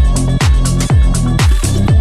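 Electronic background music with a steady kick drum about twice a second and sharp high percussion hits between the beats.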